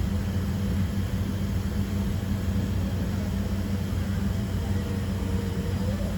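Steady cabin drone inside a Boeing 767-300ER airliner: an even rushing noise over a constant low hum, with no change in pitch or level.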